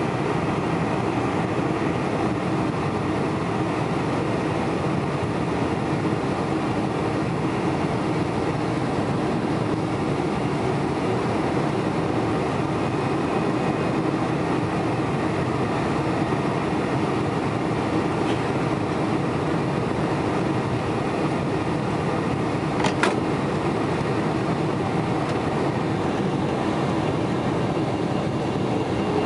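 Steady cabin noise of a Boeing 747-400 on final approach, the engines and airflow heard from a window seat beside the wing. One brief sharp click about three-quarters of the way through.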